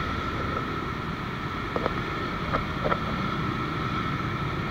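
Busy street traffic: a stream of motorbikes and scooters running past, with wind rumbling on the microphone and a few short faint blips about two to three seconds in.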